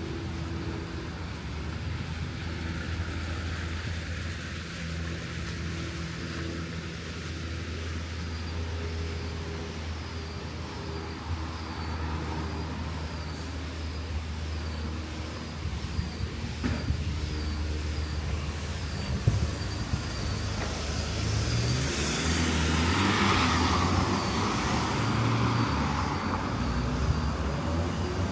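Street traffic: a motor vehicle engine idling steadily nearby, with a vehicle passing more loudly in the last several seconds. A high chirp repeats about once a second through the middle.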